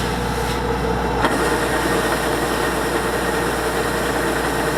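Kubota DC-105X combine harvester's diesel engine running steadily, with a steady hum. About a second in, the sound shifts abruptly to a brighter, hissier mix.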